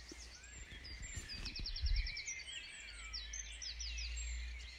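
Several small songbirds chirping and twittering, with a quick run of a dozen or so repeated high notes about a second in. A steady low rumble lies underneath, swelling briefly around two seconds in.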